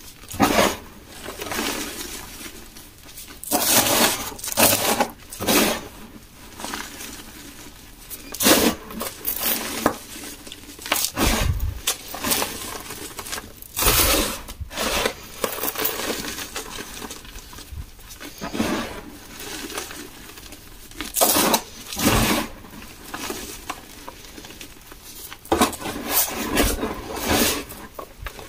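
Hands crushing and squeezing clumps of gym chalk over a bed of chalk powder: irregular crunching and crumbling bursts, with soft powdery rustling between them.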